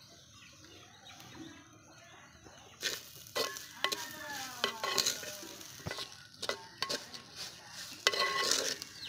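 Wooden spatula stirring and scraping crumbled steamed raw banana and grated coconut around a clay pot. It comes in short, repeated scraping strokes that start about three seconds in, and the loudest stroke is near the end.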